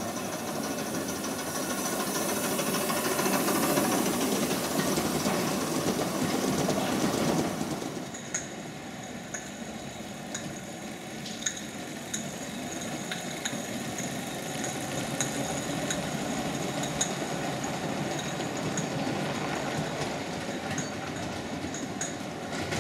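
Gauge 1 model train with coaches running along the track, a steady rolling noise of wheels on rail. About eight seconds in it drops to a quieter running sound with scattered light clicks.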